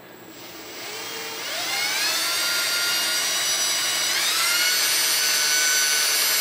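Cordless drill motor spinning up with a rising whine as a twist bit bores a hole through a plastic battery-pack case. The drill speeds up again a little after four seconds in and runs on steadily.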